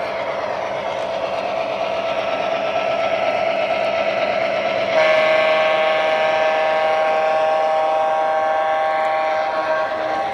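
Loudspeaker sound system of an MTH Premier O-gauge New York Central E8 diesel model (Proto-Sound 3) playing a steady diesel engine drone. About halfway in, a multi-note air-horn chord sounds and holds for about five seconds, stopping near the end.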